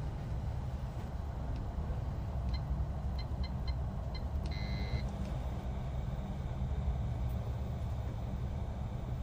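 A steady low rumble, with a run of five short electronic beeps about two and a half seconds in, followed by one longer beep lasting about half a second.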